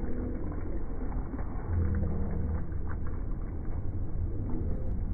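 A steady low motor hum with a few light clicks and clatter over it.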